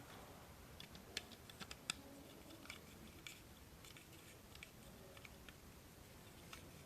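Scattered light clicks and ticks, as of small parts and tools being handled at close range, over quiet room tone; the two loudest come a little after a second in and just before two seconds.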